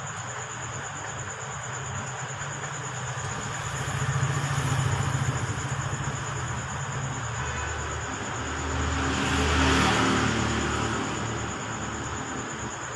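Low rumble of passing vehicles that swells twice, about four seconds in and again near ten seconds, over a thin steady high-pitched tone.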